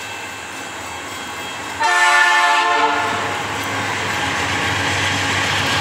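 Air horn of an approaching diesel freight locomotive, a GE AC44i, sounding one blast about a second long: a chord of several notes, starting about two seconds in. Diesel engine and wheel-on-rail rumble run underneath and grow a little louder after the horn.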